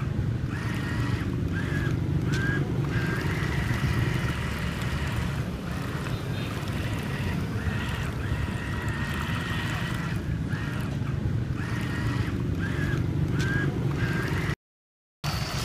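Homemade foam paddle-wheel RC boat running on water: a small electric motor whining, the high tone breaking off and returning about once a second, over a steady low rumble of the paddle wheels churning. The sound drops out for about half a second near the end.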